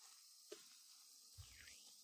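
Near silence: faint steady hiss, with one small sharp tick about half a second in and a faint low thud a little later.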